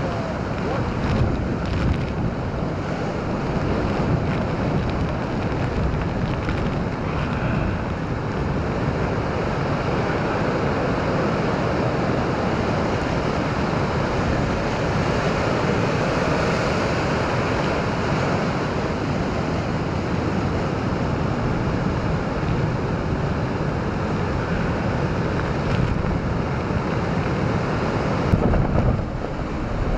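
Heavy hurricane surf breaking in a continuous, unbroken wash, with strong wind buffeting the microphone in brief gusts near the start and near the end.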